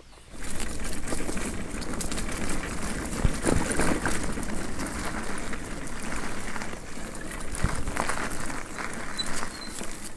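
Bicycle, an electric one, ridden over a rough dirt path: tyre noise from the ground with a low rumble, and the frame and parts rattling in many irregular knocks. It starts suddenly about half a second in.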